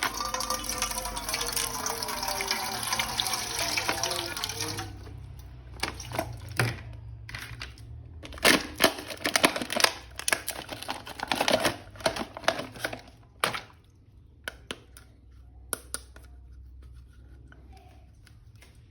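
Water running for about the first five seconds, then a quieter stretch of scattered sharp clicks and knocks.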